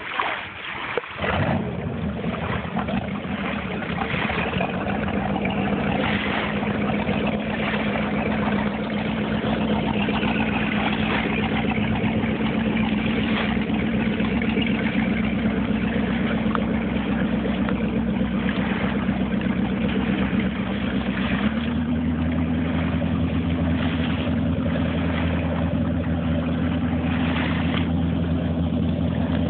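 Speedboat engine running steadily as the boat pulls away. About a second in the engine note comes up. About two-thirds of the way through it steps slightly higher and grows heavier in the low end.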